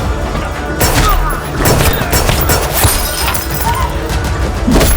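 Action-film soundtrack: music under a run of sharp hits, crashes and booms, several a second at times.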